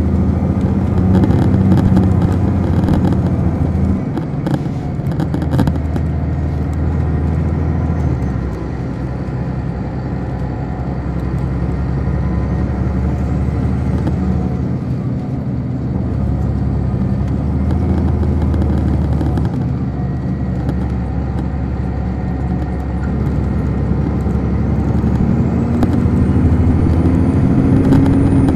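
Detroit Diesel Series 60 engine of an MCI D4500 coach, heard from inside the bus, running under load with its engine speed easing and picking up in turn. Over the last few seconds its revs climb steadily.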